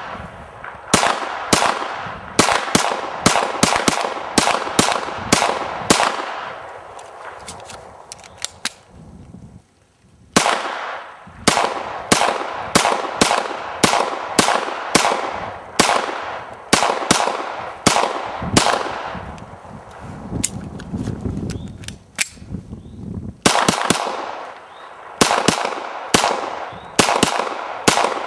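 Semi-automatic gunshots fired in quick succession, about two to three a second, each with a short echoing tail, as magazines are emptied in rapid fire. The firing breaks off briefly about a third of the way in and again for a few seconds past two-thirds, then resumes.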